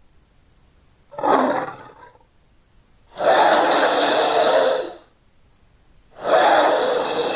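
Monster roar sound effects for a hydra, mixed from dinosaur and creature roars: a short breathy roar about a second in, then a long roar of about two seconds, and another long roar starting near the end.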